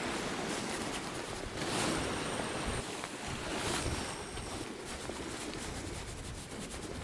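Sea waves washing and breaking over rocks, swelling about two and four seconds in, with wind rumbling on the microphone.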